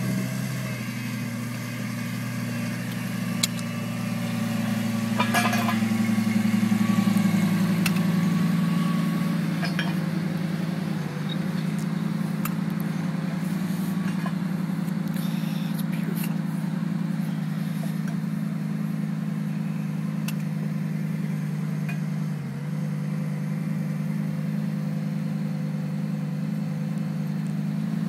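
Lamborghini Gallardo's V10 engine idling steadily. About five seconds in it grows louder for a few seconds, then settles back to an even idle, with a few faint clicks.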